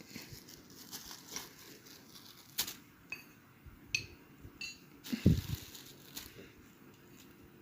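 Sharp crunches and clicks of slate pencils being bitten and handled close to the microphone, a few with a brief ringing click. There is one loud low thump about five seconds in.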